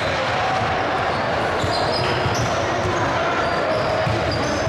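Basketball game play in a gym: a ball dribbling on the hardwood court amid a steady din of voices, with short high squeaks scattered throughout.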